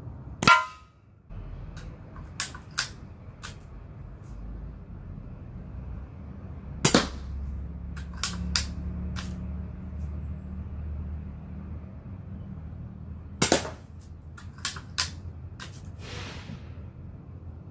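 Daisy 188 spring-piston BB pistol firing, with sharp snaps about seven seconds in and again about thirteen and a half seconds in, and lighter clicks in between as the underlever is worked.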